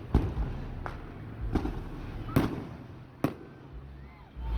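Aerial fireworks bursting overhead: about five sharp bangs spread a second or less apart, with low rumble between them.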